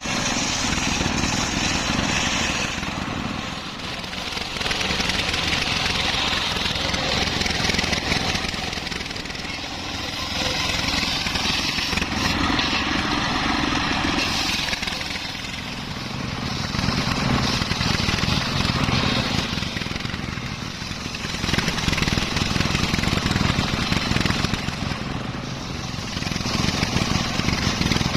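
Homemade circular sawmill running and cutting teak, its motor and blade sound swelling and easing every few seconds.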